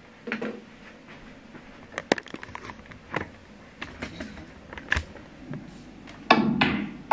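Snooker broadcast heard through a Bose Smart Soundbar 500: a few sharp, separate clicks of cue and balls striking on the table, with quiet between them and a louder stretch of sound near the end.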